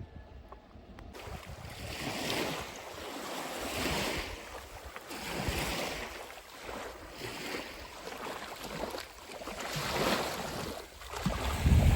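Wind blowing in gusts, its rush swelling and fading every second or two, with a low buffet on the microphone near the end.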